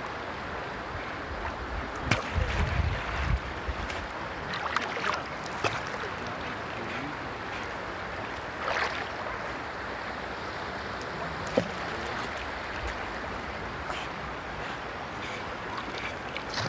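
Steady rush of river water flowing and lapping right at the microphone, which sits at the waterline. A few sharp splashes and a brief low rumble come about two to three seconds in.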